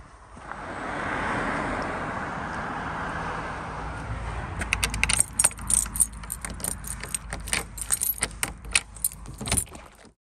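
A car passes on a wet road for the first few seconds. Then a bunch of keys jangles, with many sharp metallic clicks and rattles, as a key is worked into the lock of a wooden front door.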